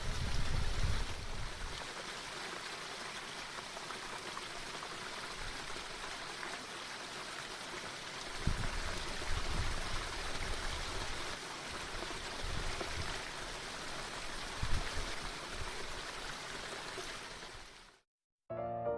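Steady rushing of a stream or small waterfall, with occasional low gusts of wind on the microphone. It cuts off just before the end and piano music begins.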